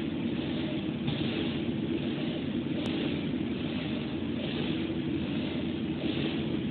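A 1.5 × 1.0 m UV flatbed printer running while printing on glass: a steady machine hum, with a hiss that swells about every one and a half seconds as the print carriage shuttles back and forth across the bed.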